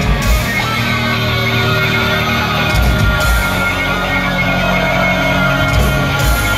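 Live thrash metal band playing loud through a venue PA: distorted electric guitars, bass and drums, heard from within the crowd.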